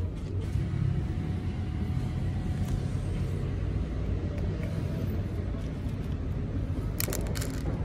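Steady low outdoor rumble with no clear source, with a quick cluster of sharp clicks about seven seconds in.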